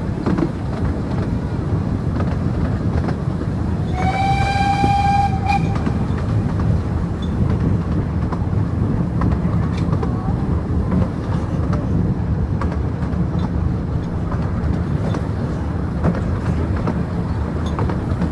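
A 15-inch-gauge steam train running steadily, heard from an open carriage, with a continuous rumble of the wheels on the rails. About four seconds in, the locomotive's steam whistle sounds once for about a second and a half.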